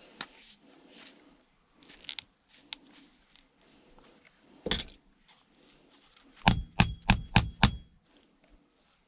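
Knocks on a workbench while a plastic electric toothbrush is being forced open: small handling clicks, a single sharp knock about halfway through, then a quick run of about six sharp, ringing metallic strikes near the end.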